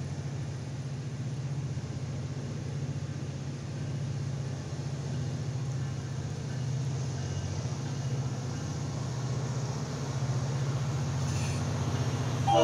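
Low, steady engine rumble that grows slightly louder over the seconds.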